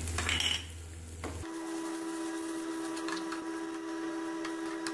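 A short scrape, then a steady hum sets in about a second and a half in, with a few light clicks of a metal spatula against a steel frying pan as the filling is stirred.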